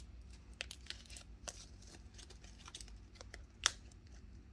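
Paper banknotes being handled and tucked into a cash envelope in a binder: soft rustling with light ticks and one sharper click about three and a half seconds in.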